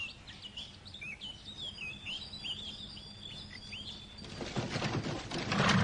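Small birds chirping, a run of short quick chirps. About four seconds in, a louder clattering starts up.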